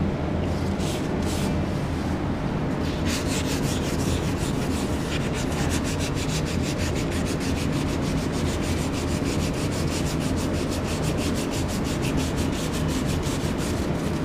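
A 500-grit soft-backed sanding sponge rubbed by hand over a painted car door panel in quick back-and-forth strokes, which come in steadily from about three seconds in. It is scuffing down a patch of lifted, fried-up base coat. A steady low hum runs underneath.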